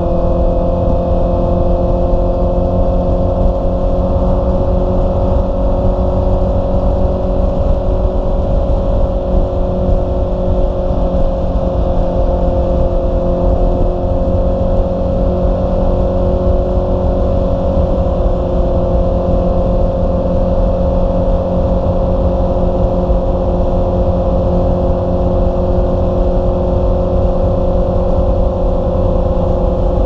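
Honda CB650R's inline-four engine running at steady cruising revs, its pitch holding nearly constant while riding.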